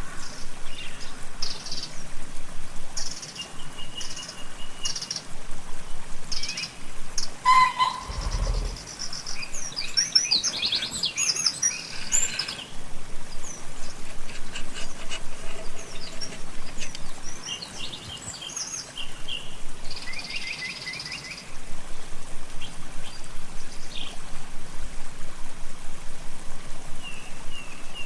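Songbirds chirping and calling throughout, short high notes and quick trills repeated in scattered groups, with a single dull low thump about eight seconds in.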